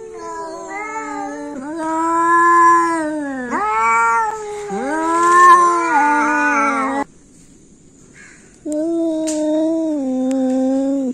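Cats yowling at each other in a territorial standoff: long, drawn-out wavering yowls that rise and fall in pitch and break off suddenly about seven seconds in. After a short pause, another long yowl starts.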